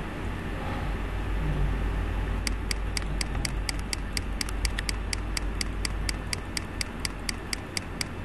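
A computer mouse button clicked rapidly and evenly, about five clicks a second, starting about two and a half seconds in, over a steady low hum.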